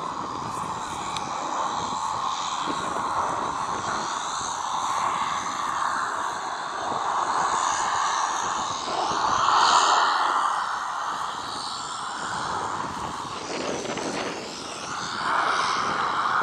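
Jet noise from a MiG-29M2 fighter's twin engines in display flight. It swells to its loudest about ten seconds in, dips near fourteen seconds, and rises again near the end.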